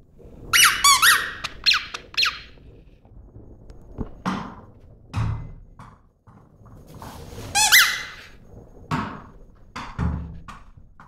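Squeaky dog tennis ball squeaked repeatedly by a puppy mouthing it, in two bursts of high-pitched squeaks: one near the start and another about two-thirds of the way in. A few dull thuds fall between the bursts.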